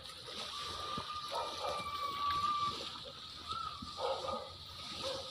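Small waves washing onto a sandy beach, a steady sea hiss, with a thin held tone lasting about two seconds and a few short distant calls.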